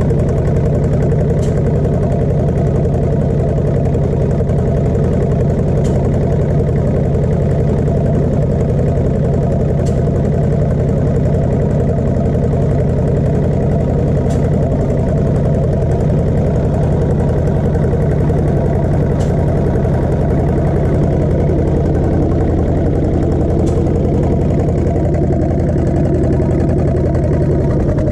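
Old stationary engine with a large belt pulley, running steadily at an even speed.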